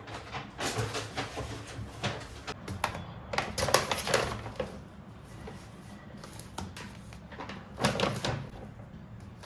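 Irregular clatter and rustling of small objects being handled, in several short bursts with quieter gaps between, over a faint low hum.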